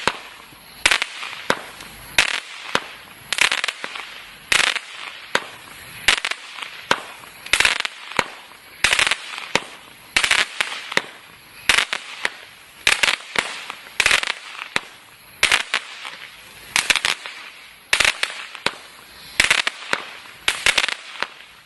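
Total FX 'Crackling Wood' firework going off in a steady series of crackling bursts. Each burst is a dense cluster of sharp cracks, and they come about once a second.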